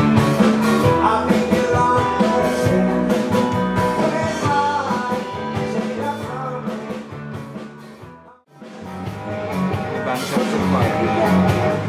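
Live rock-and-roll band with electric guitars, drums and keyboards, with singing. The music fades out about eight seconds in, and after a brief gap another number fades in.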